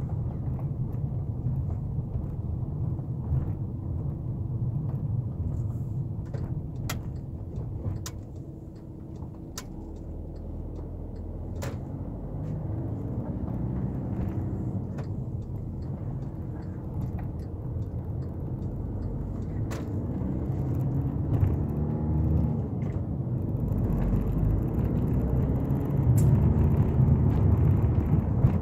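VW Caddy 2.0 TDI four-cylinder diesel engine and road noise heard from inside the cab while driving at low town speed. The engine pitch rises and falls as the van slows and pulls away, getting louder near the end, with a few sharp clicks.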